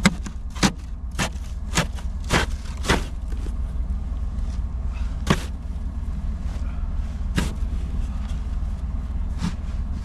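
Snow shovel striking and scraping packed snow and ice: a quick run of five strokes, then a few spaced single strokes, over a steady low rumble.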